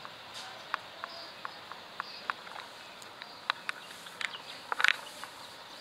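Handling of a cardboard retail box: scattered light clicks and taps as it is held and turned over, with a short louder clatter just under five seconds in, over a faint steady hiss.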